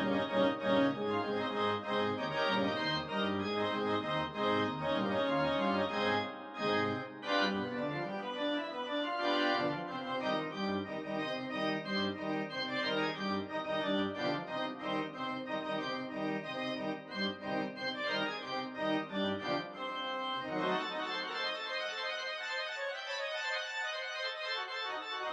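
Organ music: sustained chords and changing notes. About twenty seconds in, the bass drops out and only higher notes carry on.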